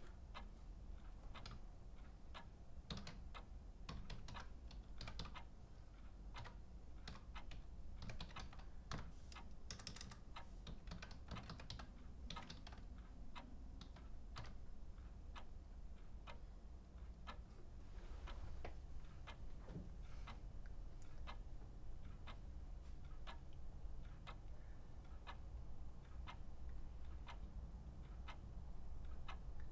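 Typing on a computer keyboard: irregular key clicks, several a second, coming in uneven runs over a low steady hum.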